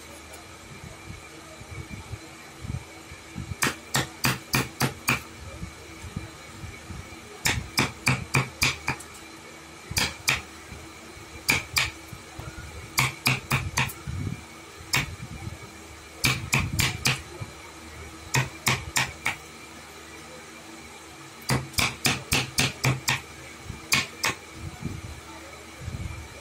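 Hammer blows in short quick runs of up to about seven strikes, four or five a second, with pauses of a second or two between runs, over a faint steady hum.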